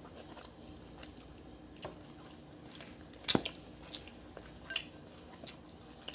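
Eating sounds: chewing, with scattered clicks and cracks of Dungeness crab shell being broken open, the sharpest crack about three seconds in.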